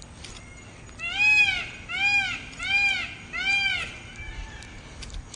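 An animal calling four times in a regular series, each call about half a second long and rising then falling in pitch, followed by a fainter fifth call.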